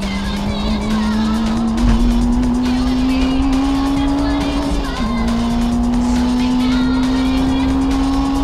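Honda Integra DC5's 2.0-litre four-cylinder engine at high revs, heard from inside the cabin under full throttle. The pitch climbs steadily, drops at an upshift about five seconds in, then climbs again through the next gear.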